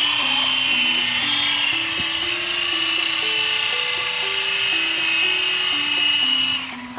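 The small electric motors and rotors of a toy remote-control helicopter drone running with a loud, high-pitched whine. The whine rises as they spin up, holds steady for about six seconds, then falls away near the end.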